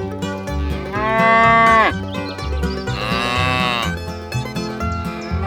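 Two cow moos, each about a second long with the pitch dropping off at the end, over background music; a third moo begins right at the end.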